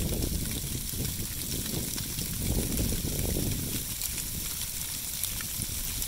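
Dry sleet, small round ice pellets, falling on dry winter beech leaves and snow: a steady fine hiss with tiny ticks. Low rumbling swells come near the start and again about halfway through.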